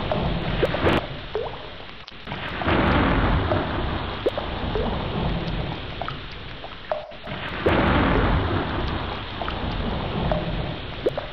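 Heavy rain with thunder rumbling, swelling and easing several times, with brief dips about two and seven seconds in.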